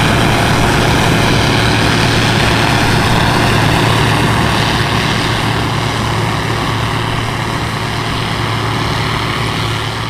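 Massey Ferguson 760 combine harvester at work, its Perkins six-cylinder diesel engine and threshing machinery running steadily with a low drone, easing slightly as it pulls away.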